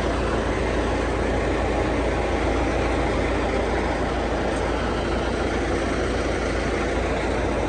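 Vacuum sewer truck's engine running steadily, a low, even drone.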